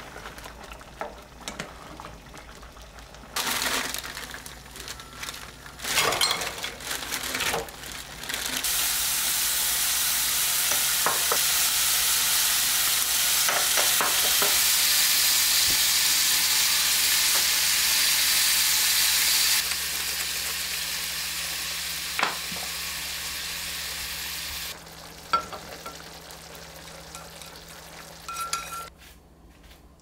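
A spoon stirring and knocking in a pot of curry, then rolled bacon slices sizzling loudly in a frying pan. The sizzle starts about eight seconds in, softens near twenty seconds and stops about five seconds later.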